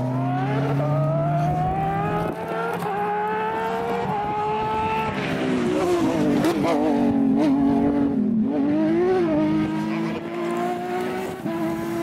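Rally car engines on a stage. One car accelerates away with its engine pitch rising. From about five seconds in, the revs swing up and down, then settle as the next car approaches.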